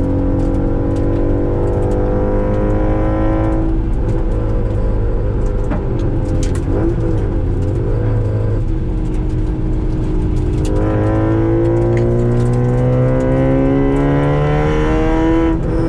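Car engine heard from inside the cabin on a track lap: it revs up under acceleration, drops off after about three and a half seconds, runs lower with the throttle wavering through a corner, then climbs again from about eleven seconds in before dropping once more near the end.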